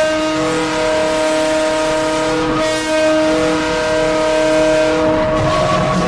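Mercyhurst University Lakers' ice hockey goal horn blowing, a chord of several steady tones at once. It breaks briefly about two and a half seconds in and stops about five and a half seconds in, where the goal song's music begins.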